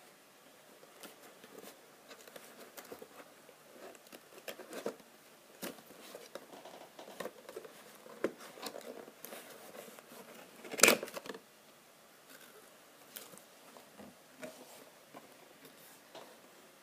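A cardboard figure box being handled and its top flap worked open by fingers: scattered scrapes, taps and rustles of card, with one much louder sharp snap about eleven seconds in.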